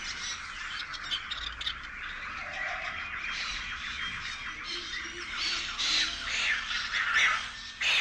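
Rural bird ambience: many birds calling and chirping at once in a dense chorus, with louder calls from about halfway through.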